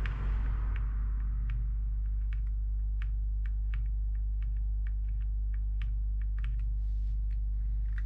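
Steady low electrical hum with irregular light clicks of small tools or parts being handled on a workbench.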